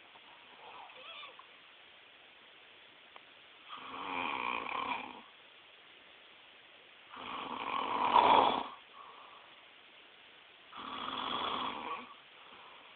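A sleeping man snoring through an open mouth: three loud snores about three and a half seconds apart, the middle one the loudest, with a faint one just before them.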